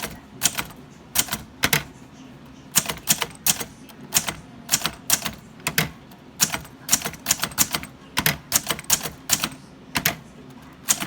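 Underwood Golden Touch typewriter being typed on slowly, one key at a time: separate sharp typebar strikes at an uneven pace, in small clusters with short pauses between.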